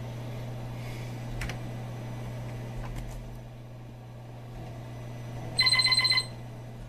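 Commodore PC 10-II rebooting: a steady low hum with two clicks in the first three seconds. Near the end comes a short, buzzy, rapidly pulsing beep of about half a second from the PC speaker, the power-on self-test beep.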